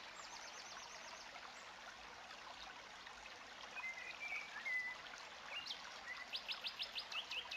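Birds calling over a steady hiss of water. A quick run of rising chirps comes at the start, a few short whistled notes come midway, and another rapid run of rising chirps comes near the end.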